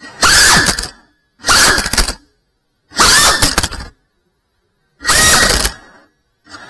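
Geprc Cinelog cinewhoop drone's motors and propellers whining in short bursts of under a second, about every one and a half seconds. Their pitch glides up and down within each burst, with silence in between.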